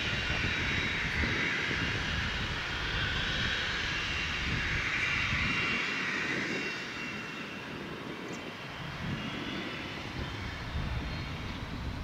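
Cessna Citation XLS+ business jet's twin Pratt & Whitney Canada PW545C turbofans running at taxi power: a steady whine and hiss that grows somewhat fainter a little past halfway through.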